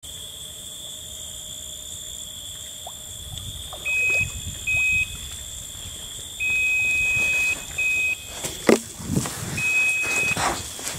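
Electronic carp bite alarm sounding a run: five bursts of a high steady tone, some short and two held about a second, as a fish takes line. From about two-thirds of the way in, a thump and footsteps on sand as the angler hurries to the rods.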